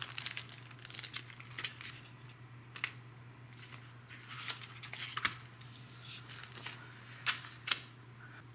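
Clear plastic stamp sheets and packaging crinkling and rustling in short, irregular crackles as they are shifted about by hand on a tabletop.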